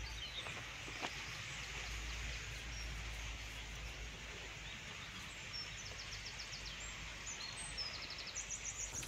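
Steady outdoor background hiss with birds chirping here and there; a quick run of high, repeated chirps comes near the end.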